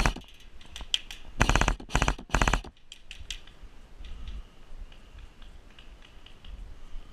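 Airsoft rifle fire: a rattle of rapid shots about a second and a half in, then two more quick bursts, with a few scattered single clicks around them. After about three seconds it quietens, with only faint clicks.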